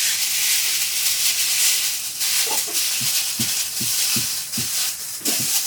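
Loud steady hissing. From about two seconds in, a run of short low knocks sounds under it, roughly two to three a second.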